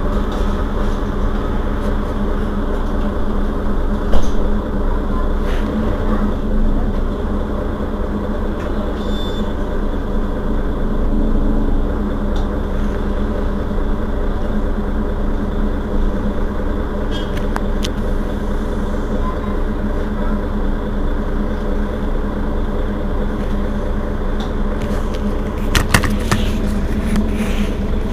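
Mercedes-Benz Citaro Facelift city bus diesel engine idling steadily while the bus stands at a stop, heard from just behind the rear engine compartment. Brief sharp knocks about four seconds in and again near the end.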